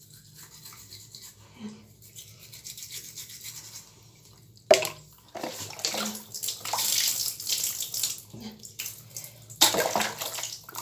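Toothbrush scrubbing a dog's teeth, faint and scratchy. Then about five seconds in, a sudden clunk and loud irregular splashing and sloshing of water from a plastic container as the dog's mouth is rinsed, which stops briefly and starts again near the end.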